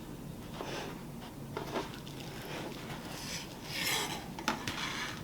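Soft rustling and rubbing as the artificial Christmas wreath is handled during a glue-gun repair. There are a few brief swishes, a longer, louder one about four seconds in, and a small click just after it.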